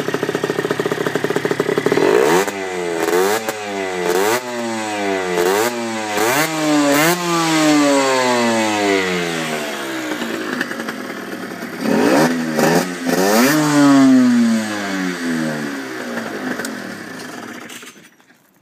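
Aprilia RS50's 50 cc two-stroke single (Minarelli AM6), fitted with an open pod air filter, idling and then revved in a quick series of throttle blips, each rising sharply in pitch and falling back. After a short lull it is blipped twice more, winds down and cuts off near the end.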